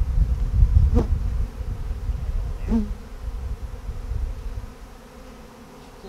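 Honeybees from a disturbed colony buzzing in the air around it, over a low rumbling that is loudest in the first half and dies down near the end. Single bees fly past close by about a second in and again near three seconds.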